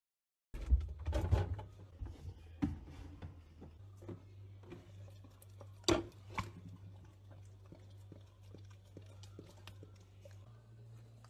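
A dog eating food off a plate: scattered wet mouth clicks and chewing, with a few sharp knocks near the start and one about six seconds in. A steady low hum runs underneath.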